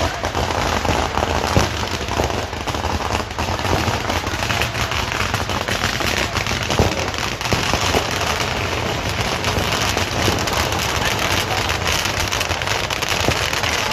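Large bonfire burning: a steady, dense crackling with a few sharper pops.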